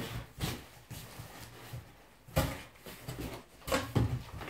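Flaps of a large cardboard carton being handled and folded down: several separate dull knocks and rubs of cardboard, the strongest about two and a half seconds in and again near the end.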